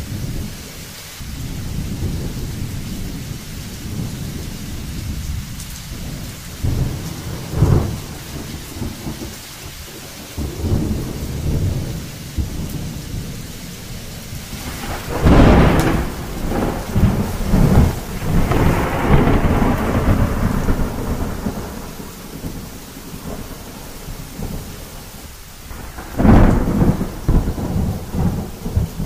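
Thunderstorm: steady rain with a continuous low rumble of thunder. A sharp crack comes about 8 seconds in, a loud clap about halfway that rolls on for several seconds, and another crack near the end.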